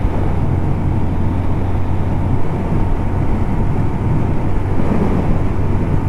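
Motorcycle engine running at a steady cruising speed, a constant low hum under a rushing haze of wind and road noise.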